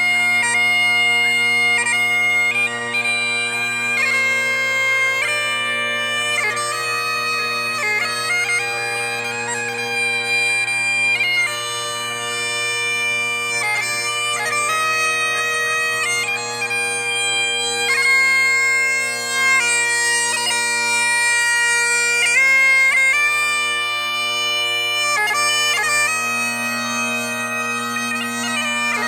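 Instrumental music: a reedy wind melody moving note to note over steady, unbroken drone notes.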